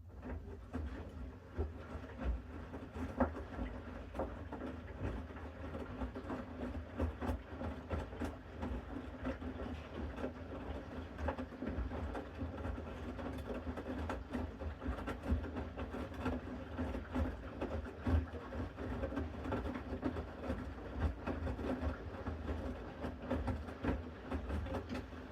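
Bosch Series 6 washing machine drum turning in the main wash: a motor hum with wet laundry tumbling, patting and knocking inside the drum. It starts suddenly and stops at the end, one turning phase between pauses.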